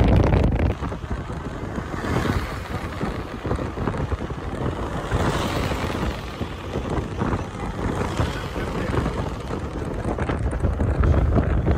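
Wind buffeting the microphone on a moving vehicle, over the low rumble of engine and road noise. The noise swells about five seconds in as a farm tractor drives close alongside.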